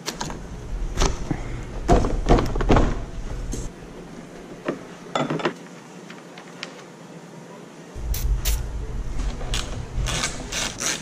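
Plastic radiator fan shroud and wiring connectors being pried and unclipped by hand: a run of sharp clicks and knocks with scraping and rubbing between them as the cooling fans are taken off. The pace is irregular, with a quieter stretch in the middle.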